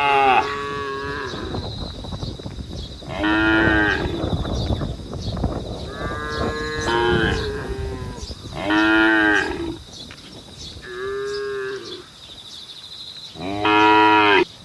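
Cattle mooing again and again: about seven loud calls, some short and some about a second long, a second or two apart, the cows calling to the herd.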